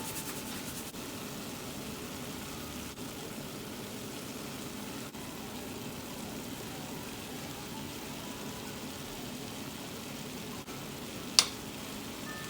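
Hot oil sizzling steadily as food fries in a pan, with one sharp click about eleven seconds in.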